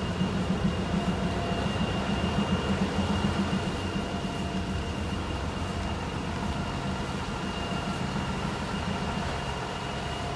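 Air duct cleaning machine running steadily: a low, engine-like drone with a thin, steady whine above it, a little uneven for the first few seconds and then even.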